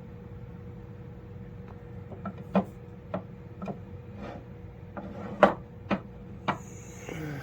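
Hand tools knocking and clicking as they are handled and set down on a hard surface: a series of separate knocks, the loudest about five and a half seconds in.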